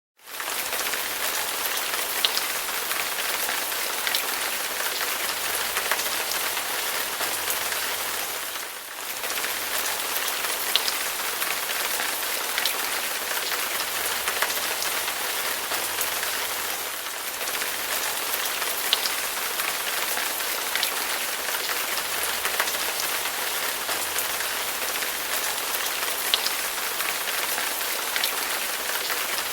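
Steady, heavy rain: a dense even hiss with scattered sharper drop ticks. It starts abruptly at the outset after silence and dips briefly twice.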